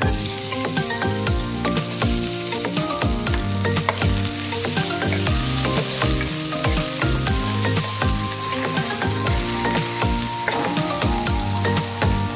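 Minced ginger and sliced red chillies sizzling in hot oil in a nonstick pan, stirred with a wooden spatula; the sizzle starts suddenly as the ginger goes in. Background music plays underneath.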